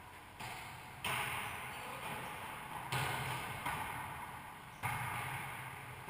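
A volleyball being struck by hands in a wallyball rally: about five sharp smacks, the loudest about a second, three seconds and five seconds in, each ringing on in the echo of the enclosed racquetball court.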